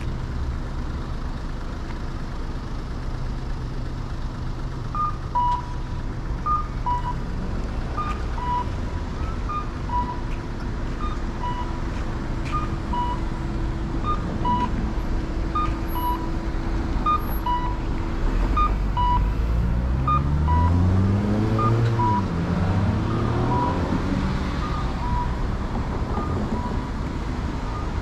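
Street traffic with a two-note electronic beep, a higher note then a lower one, repeating about every second and a half. About two-thirds of the way through, a vehicle's engine pulls away nearby, rising in pitch, and this is the loudest part.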